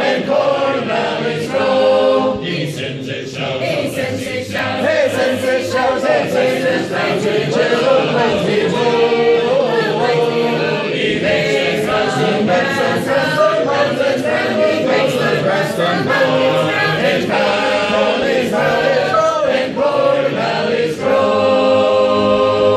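A mixed group of voices singing a hymn a cappella in four-part harmony, shape-note style, full and loud. The singing closes on a long held chord that cuts off right at the end.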